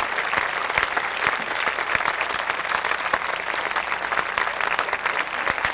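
Theatre audience applauding steadily: a dense, even patter of many people clapping.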